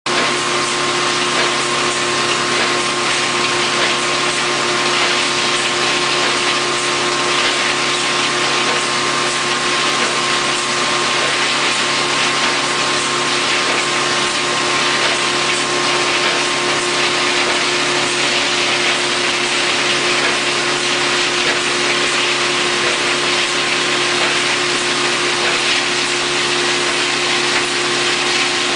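Industrial plastics-processing machine running steadily: an even hiss over a constant hum, with no pauses or changes in speed.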